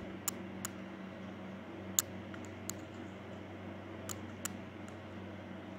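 Black plastic ladle stirring egg white into simmering hot and sour soup, knocking against a nonstick pan in a few sharp, irregular clicks over a steady low hum.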